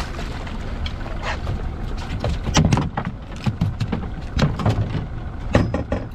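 Steady low rumble of wind and sea around a small fishing boat, with irregular knocks and clatters on deck as a fish is netted. The clatters come in quick clusters about two and a half seconds in and again near the end.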